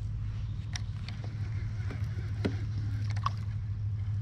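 A steady low hum, with a few light clicks and taps from the fishing rod and reel being handled.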